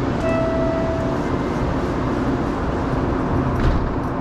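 Valley Metro Kinki Sharyo light-rail car standing at the platform with a steady hum. Just after the start a single warning tone sounds for about a second, and near the end the doors close with a thump.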